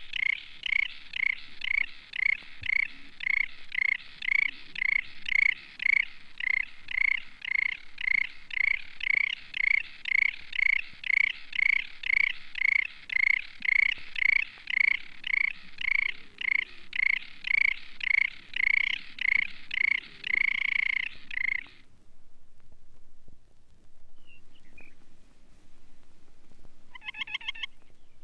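Rock sandpiper singing: a long run of evenly repeated notes, about three a second, that stops abruptly about 22 seconds in. A couple of short faint calls follow, then a brief quick trill near the end.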